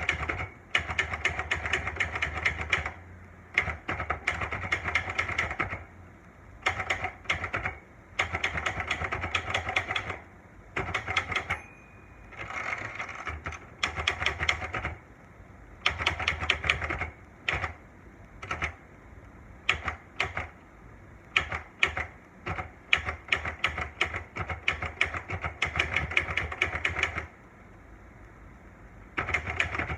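Olivetti Lettera 92 manual portable typewriter being typed on: runs of rapid keystrikes lasting a second or two, separated by short pauses.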